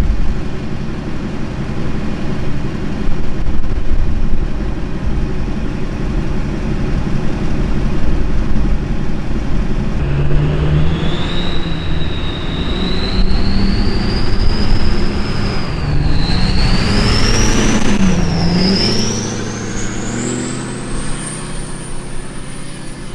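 LLY Duramax 6.6-litre V8 turbo-diesel pickup with a 64 mm turbo and straight pipe: a steady engine and road drone heard inside the cab, then, about ten seconds in, a loud turbo whistle over the diesel engine that climbs in pitch as the truck accelerates, dips twice, and climbs highest near the end.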